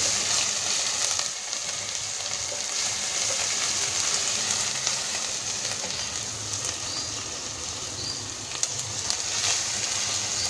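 Sliced onions and garlic paste sizzling in hot oil in a nonstick pan as the onions turn light brown, a steady hiss. A plastic spatula stirs them now and then.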